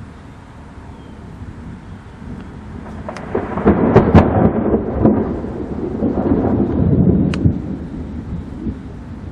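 Thunder: a low rumble builds about three seconds in into a loud rolling peal with several sharp cracks, then dies down toward the end.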